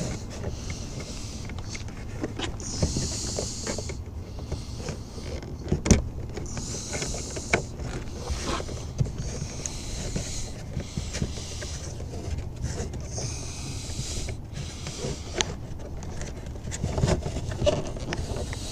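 Hands working a truck's plastic door panel and its connectors: scattered clicks and knocks, the sharpest about six seconds in, with short hissy rubbing sounds every few seconds over a steady low hum.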